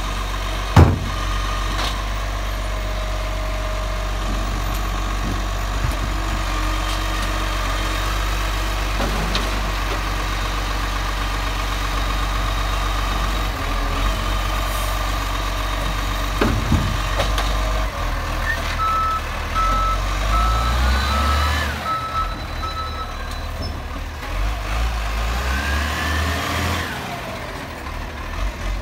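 Side-loading garbage truck with a Bucher body, its engine running while the mechanical arm empties wheelie bins, with a sharp knock about a second in and lighter knocks later. Past the middle a reversing alarm beeps steadily for about four seconds as the engine note changes and the truck manoeuvres.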